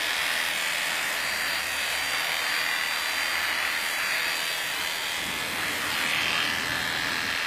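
Electric dog-grooming clipper running steadily as it shaves a matted coat off a dog, a continuous motor buzz with a thin high whine in the middle part.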